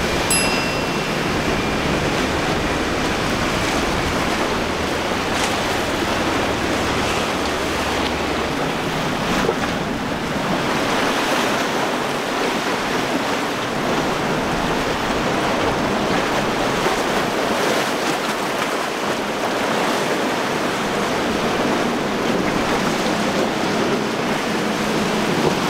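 Rough water churning and breaking, with hull spray from boats running fast through it, and wind buffeting the microphone.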